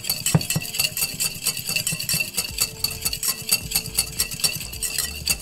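Wire whisk beating a thick miso glaze in a glass bowl: a fast, even run of light ticks as the wires strike the bowl, several strokes a second.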